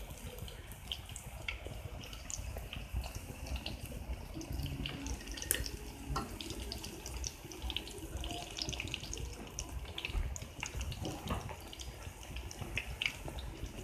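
Spinach pakoras deep-frying in hot oil in a steel kadai, sizzling steadily with many small crackles.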